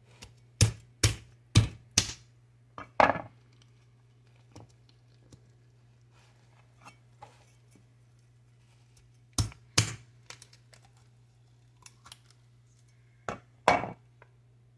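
A heavy kitchen knife chopping into the shell at the top of a trimmed young coconut to cut it open: a quick run of about six sharp knocks in the first three seconds, then two more about nine seconds in and two near the end.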